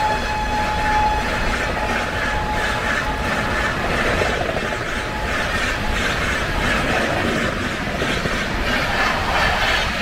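Express passenger train's coaches rushing past at speed: a steady rumble with wheels clattering over the rail joints. The tail of the locomotive's horn blast dies away about a second in.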